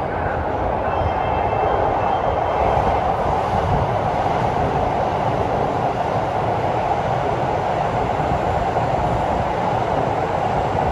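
Steady running noise of trains in an underground station, from a Keio train standing at the platform and the track beside it; a continuous rumble and hum that swells slightly about two seconds in and then holds steady.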